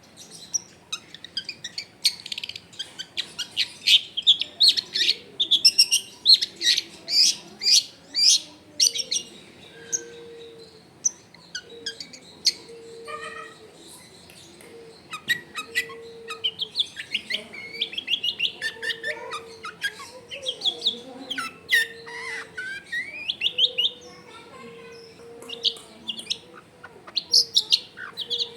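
Long-tailed shrike singing a rapid, chattering song packed with mimicked phrases: sharp, high notes in fast runs and bursts, busiest at the start and again toward the end. A faint low note repeats about every second and a half in the background.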